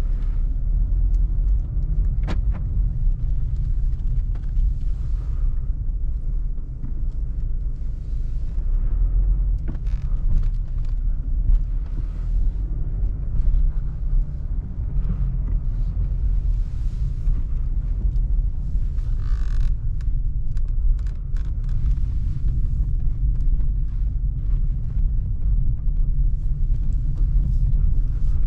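Mercedes-Benz E220d cabriolet driving with the roof down: a steady low rumble of wind, road noise and its four-cylinder diesel engine, with a few faint clicks.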